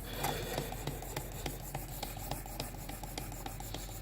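Sharpening stone on the rod of a Worksharp Precision Adjust rasping back and forth along a clamped knife edge, in quick, even strokes about three a second.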